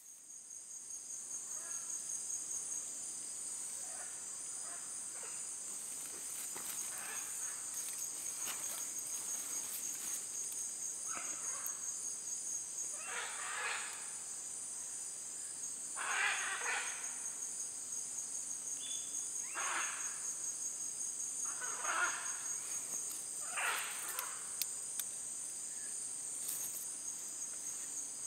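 Steady high-pitched chorus of forest insects, fading in over the first second or two. From about the middle on, short, hoarse, noisier sounds repeat every two to three seconds over it.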